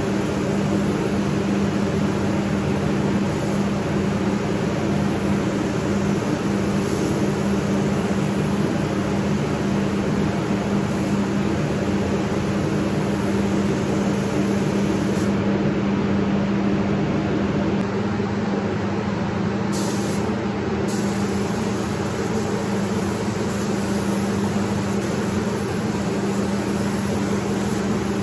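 Compressed-air spray gun hissing as it lays red paint onto a car body panel, over the steady hum of the spray booth's fans. The hiss drops out for a few seconds past the middle, then resumes.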